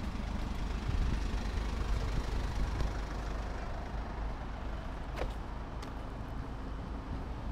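Road traffic rumbling steadily, with two faint clicks about five seconds in.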